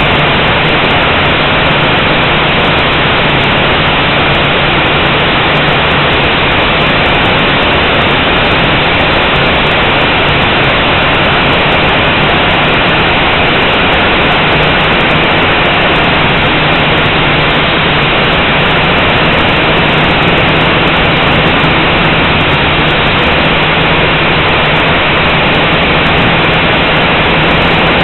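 Blade 180 quadcopter in flight, heard through its onboard camera: a loud, steady rushing whir of propellers and motors, with a faint low hum underneath.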